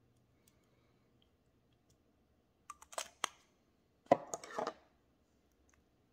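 Small cosmetics such as a lipstick tube handled on a tabletop: a few sharp clicks about three seconds in, then a short clatter and rustle about a second later as items are put down and picked up.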